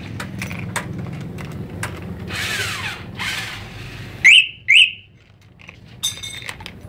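Motorcycle security alarm giving two sharp chirps about half a second apart, as it is set or unset from its remote, just after a steady low mechanical drone cuts out. A brief buzzy electronic sound from the alarm follows about a second later.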